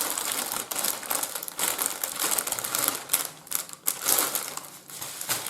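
Plastic packaging crinkling and rustling as it is handled and opened by hand, in irregular bursts of crackle.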